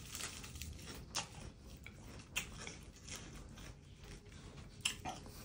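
A person chewing a mouthful of fresh lettuce leaf wrapped around spicy shrimp larb, with several crisp crunches spread through.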